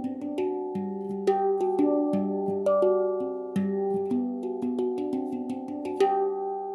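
Background music: a melody of notes that start sharply and ring on, the last one struck about six seconds in and left to fade.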